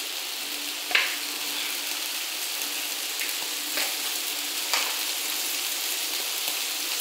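Rice and seafood sizzling in the oil and salmorreta of a paella pan as the rice is sautéed, a steady frying hiss. A few short clicks break through, the loudest about a second in and others near four and five seconds.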